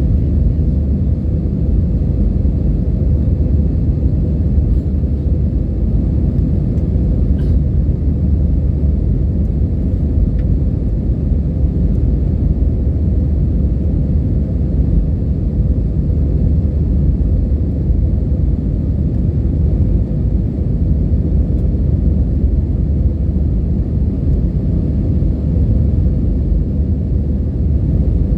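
Airliner cabin noise: a steady low rumble of the engines and airflow heard from inside the cabin, with a faint steady hum.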